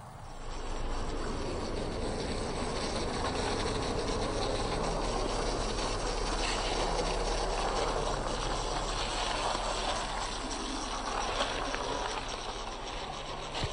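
00 gauge model GWR outside-framed 4-4-0 locomotive running along the track, a steady whirring rush of its motor and wheels on the rails, rising about half a second in and then holding even.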